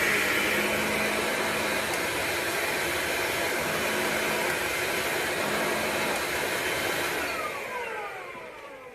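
Hoover Linx Signature 18V cordless stick vacuum running steadily, then switched off about seven seconds in, its motor whine falling in pitch as it spins down.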